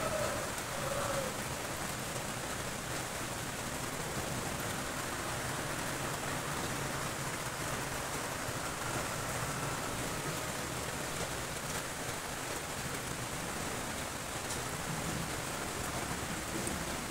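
Steady rain falling on corrugated iron roofs, an even hiss.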